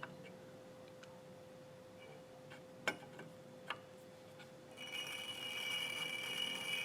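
A few light metallic clicks and taps. Then, a little under five seconds in, a machine starts running with a steady high-pitched whine.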